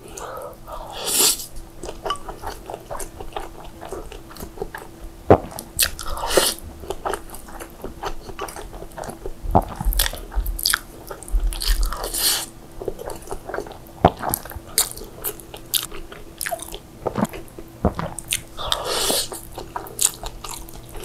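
Close-miked eating of saucy instant fried noodles: wet chewing, biting and lip smacks throughout, with a few longer slurps of noodles, about four in all.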